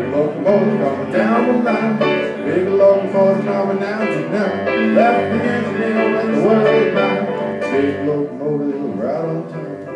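Electric stage keyboard played live, a continuous passage of chords and melody in a song with no words sung.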